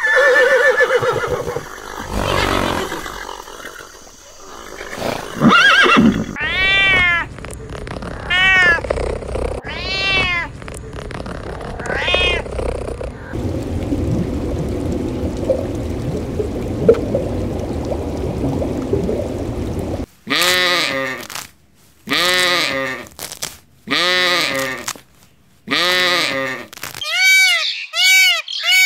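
A run of different animal calls. First come several drawn-out pitched cries about two seconds apart, then a stretch of steady noise, then a quick series of short repeated calls.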